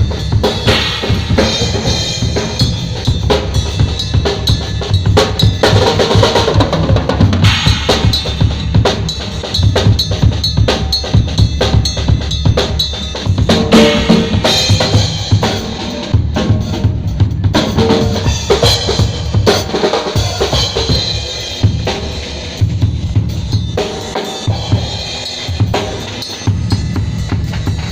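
Drum kit played continuously, with bass drum and snare hits in quick succession, during a sound check.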